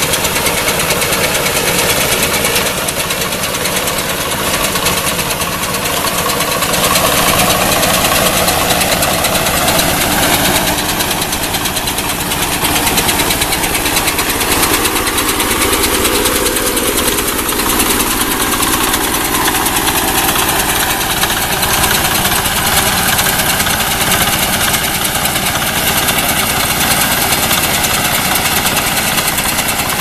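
Engine of a walk-behind rice reaper running steadily as the machine cuts its way through standing rice.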